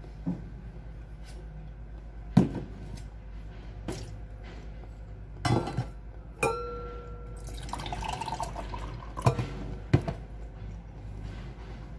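Eating sounds of a man chewing bread, with scattered sharp clicks and knocks, and a piece of tableware clinking once with a short ringing tone about six and a half seconds in. A steady low hum runs underneath.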